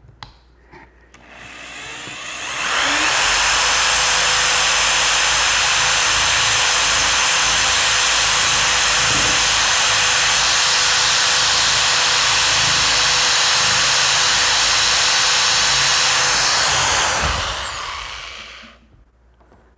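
Electric drill with a 5/32 bit boring into the rivet that holds a padlock's core retainer plate. It spins up about two seconds in, runs steadily under load, and winds down near the end; it is a tough rivet to get through.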